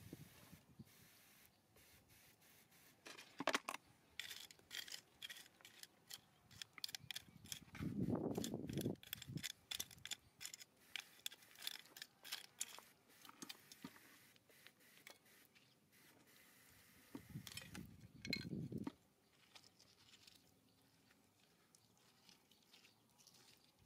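Hand digging and scraping among rock and soil: scattered clicks, taps and scrapes of hard material, thickest in the first half, with two louder, duller bursts of about a second each, one about eight seconds in and one about eighteen seconds in.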